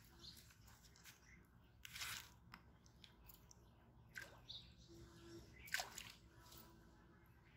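Near silence with faint crunching and rustling and a few sharper crackles, as of dry fallen leaves shifting under someone crouched on them.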